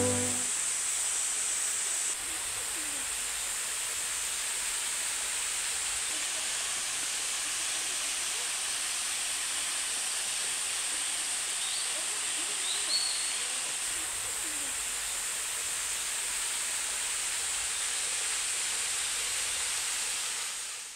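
Steady hiss of a thin waterfall spilling down a rock face into a pool, with a faint short high chirp about twelve seconds in; the sound fades out at the end.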